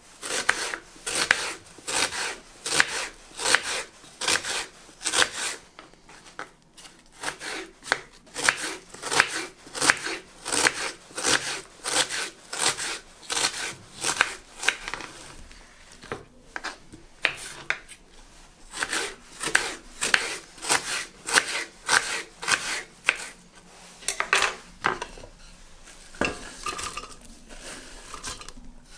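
Kitchen knife chopping onion on a wooden cutting board: steady knocks about two a second, with a few short pauses. Near the end, diced onion pieces drop into a stainless steel pot.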